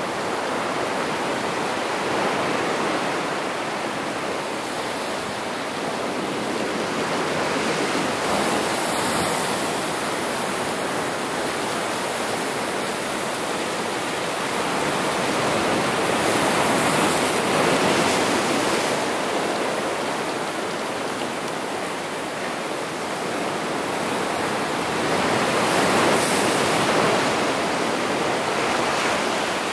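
Ocean surf breaking and washing over shoreline rocks: a steady rush of water that swells louder three times as bigger waves come in.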